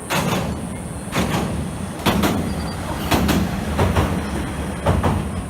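Fireworks going off in quick succession: a run of sharp booms with echoing tails, about one a second, some in close pairs.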